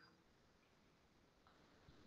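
Near silence: faint room tone, with a couple of faint ticks in the second half.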